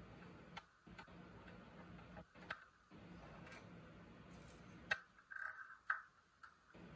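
Scattered light metallic clicks and taps from a hand tool working fasteners on a cast aluminium engine case, irregularly spaced, with a short metallic ring about five seconds in. A faint low hum runs underneath.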